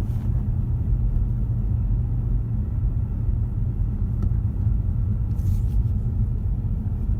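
Steady low road rumble and tyre hum heard inside the cabin of a 2015 Ford Mustang 2.3 EcoBoost while driving. The owner finds it excessive and suspects a bad wheel bearing, or else the sound of low-profile tyres.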